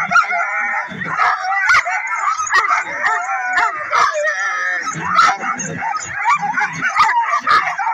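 A harnessed sled dog team barking, yipping and howling all at once, a dense, continuous din of many dogs with sharp barks cutting through: the excited clamour of sled dogs held back at a race start.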